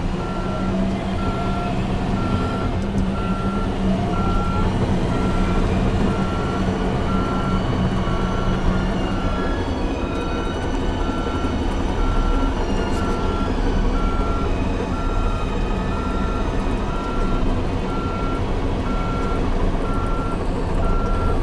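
Caterpillar D8T bulldozer's diesel engine running heavily, with its backup alarm beeping steadily on one tone, about once a second, as the dozer reverses.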